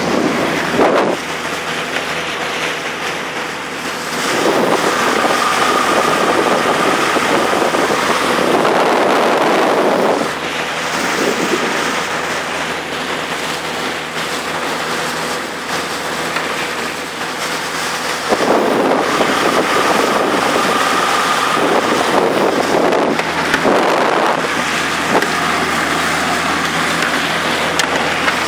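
Chrysler 45 hp two-stroke outboard motor running with the boat under way, with wind buffeting the microphone and water rushing past the hull. The sound swells louder twice.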